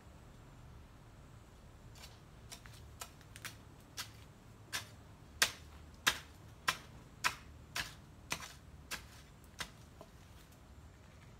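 Metal hoe blade chopping into hard soil: about a dozen sharp strikes at a steady pace, somewhat under two a second, loudest in the middle and fading toward the end.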